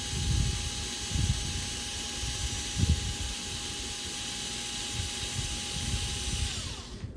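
Steady whirring hiss of a small electric motor that shuts off and winds down about six and a half seconds in, with a few low knocks of handling.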